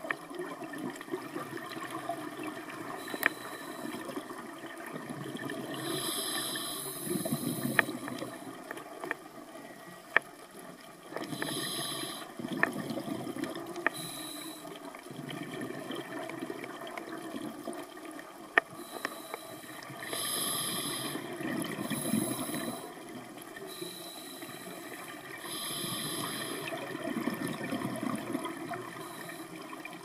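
Scuba diver breathing through a regulator underwater: hissing inhalations and gurgling rushes of exhaled bubbles every few seconds, with scattered sharp clicks.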